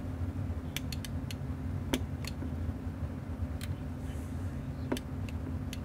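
Sharp clicks at irregular intervals over a steady low electrical hum: a switch on a CB linear amplifier is being worked while testing a freshly rebuilt switch that is not working yet.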